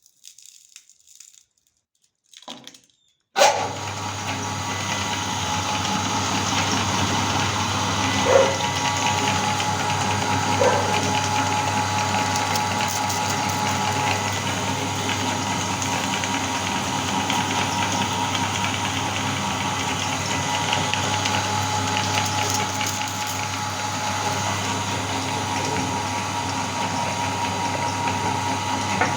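A few light clicks, then about three seconds in an electric meat grinder switches on and runs steadily with a low hum and a gritty grinding noise. There are two brief knocks partway through.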